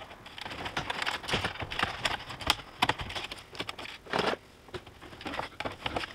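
Irregular plastic clicks and crackles as the Jeep Gladiator's dash trim is pried at with plastic trim tools and the tools are handled in their plastic tray, with a louder clatter about four seconds in.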